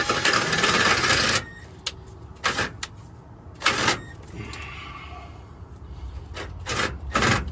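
A drill bit grinding against steel in a burst of about a second and a half, then several short sharp knocks and clanks of tools on metal. The bit is failing to bite into the steel.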